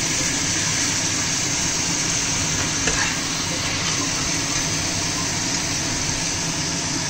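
Onion, tomato and ginger-garlic paste masala frying in ghee in a pan, a steady sizzle as the base is browned (bhuna). There is a light knock about three seconds in.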